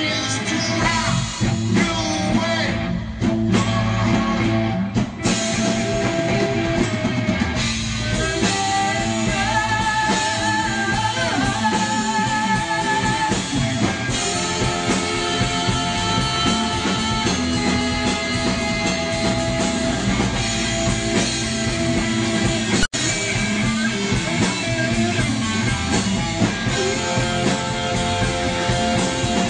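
A rock band playing live: electric guitar and drum kit with a voice singing over them. The sound drops out for a split second about three-quarters of the way through.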